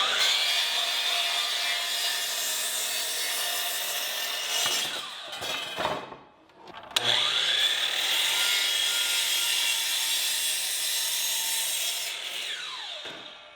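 Circular power saw cutting old barn boards: two separate cuts, each with the blade running steadily through the wood and then winding down, with a short quiet gap about halfway through.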